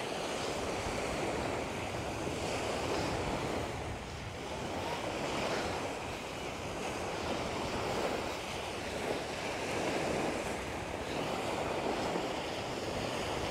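Small waves washing up on a shingle beach, swelling and easing every two to three seconds, with wind blowing across the microphone.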